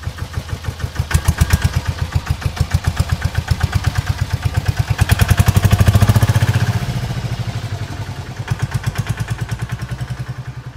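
Small single-cylinder engine idling with an even chug of about eight beats a second, swelling louder as if revved in the middle and easing off near the end; an engine sound effect laid over a plastic toy that has no motor of its own.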